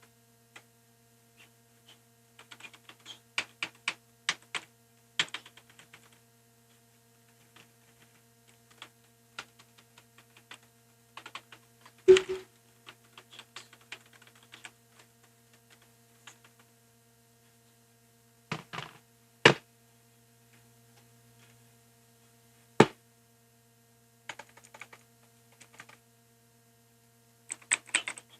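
Keys of a mechanical keyboard being pressed in irregular bursts of typing, with a few louder single key strikes about twelve, nineteen and twenty-three seconds in, over a faint steady hum.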